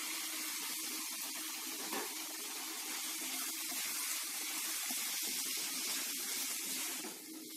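Raw minced chicken sizzling in hot oil in a kadai over onion-tomato masala: a steady hiss, with a few light strokes of a wooden spatula stirring it.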